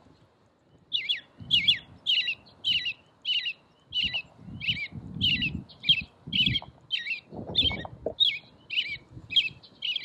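American robin song played through the small speaker of a children's bird-song sound book: a steady string of short chirping phrases, about two a second, starting about a second in.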